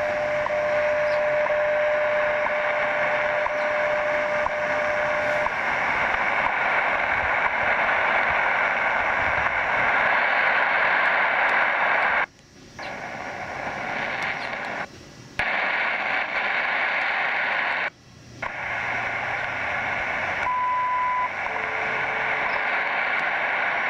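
Tecsun PL-660 shortwave radio tuned to 10 MHz, playing the WWV time-signal station: steady static hiss with a held tone for about the first five seconds. The audio cuts out briefly three times as the frequency is keyed in again, and near the end a short, higher beep, typical of WWV's minute marker, is followed by a brief lower tone.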